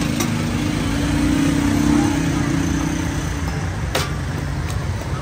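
A motor vehicle engine running close by in street traffic, swelling to its loudest about two seconds in and then easing off. A sharp click about four seconds in.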